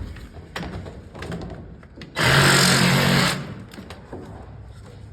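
A machine buzzes loudly for about a second with a low hum under it, starting and stopping abruptly about two seconds in.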